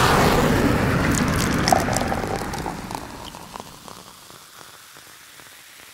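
Intro sound effect: a crackling, rain-like rush of noise with scattered sharp clicks. It is loud at first and fades away over the first three seconds or so, leaving only faint hiss.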